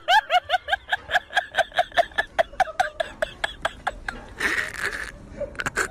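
High-pitched rapid laughter, about six short bursts a second, dying away about three seconds in. A brief burst of noise follows near the end.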